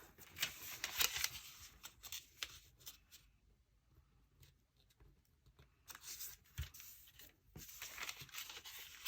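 Origami paper rustling and crackling as it is folded and creased by hand. The crackles come in two stretches, with a quieter pause in the middle.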